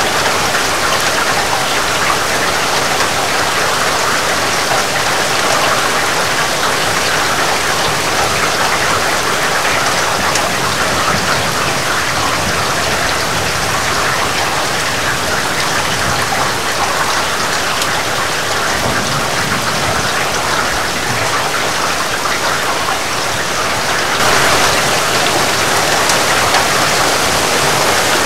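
Heavy rain falling steadily: a dense, even hiss of drops striking surfaces. Near the end it turns a little louder and brighter.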